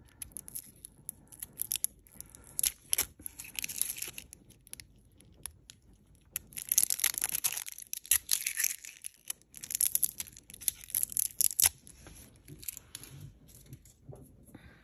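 Thin plastic wrapper crackling and tearing as it is peeled off an oil stick, in several bursts with sharp crinkly clicks, the longest and loudest through the middle.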